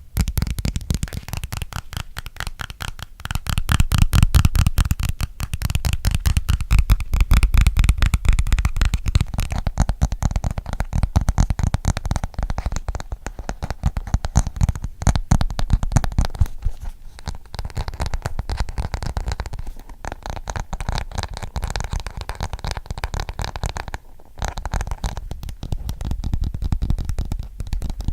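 Fast fingertip and fingernail tapping close to a sensitive microphone: a dense, rapid patter of clicks with a deep low thud under each tap.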